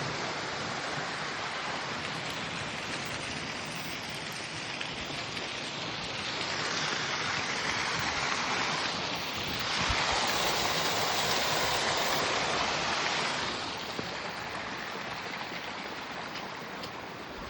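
Running water of a stream rushing steadily, swelling louder for a stretch in the middle and easing off again after about 13 seconds.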